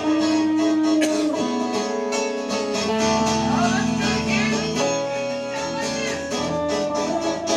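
Instrumental break in a country-folk song: acoustic guitar strummed in a steady rhythm under a lead line of held notes, some of them sliding up in pitch.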